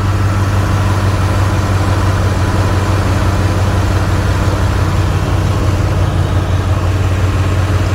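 2007 GMC Yukon SLT's V8 engine idling steadily, a constant low hum, shortly after start-up.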